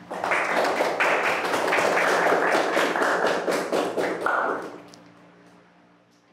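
Small audience applauding, fading away after about four and a half seconds.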